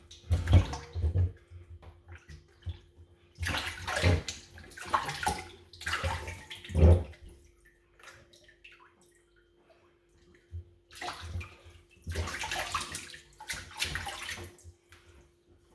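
Water sloshing and splashing in a bowl as a raw whole chicken is washed by hand in cold water, in irregular bouts with a quieter pause around the middle. A faint steady hum runs underneath.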